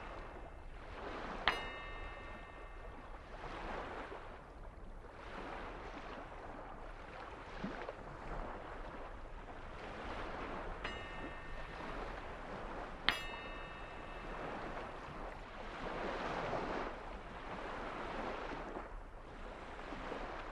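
A rushing noise that swells and fades every few seconds. A bright ringing ding sounds three times: once about a second and a half in, and twice a couple of seconds apart past the middle.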